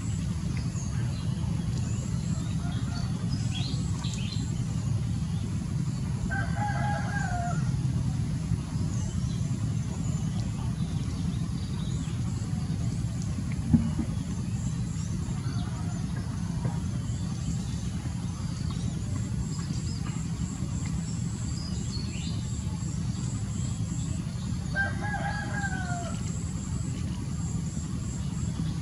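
A rooster crowing twice, each crow about a second long and dropping in pitch at the end, the two crows well apart, over a steady low rumble. A single sharp click comes about halfway through.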